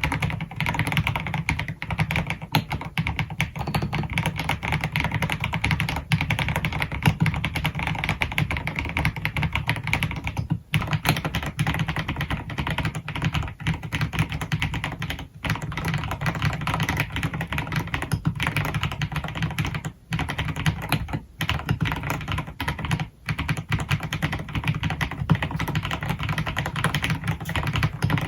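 Fast, continuous typing on an AKKO x MonsGeek MG108B full-size mechanical keyboard with piano switches and rounded PBT dye-sublimation keycaps, with a few brief pauses.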